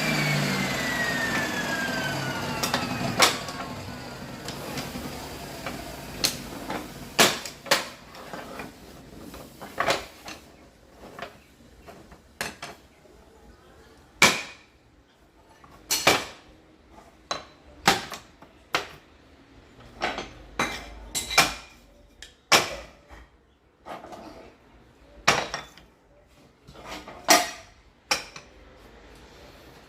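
Bosch table saw coasting down after being switched off, its whine falling in pitch and fading over the first few seconds. Then a string of sharp knocks and clacks, roughly one every second or two.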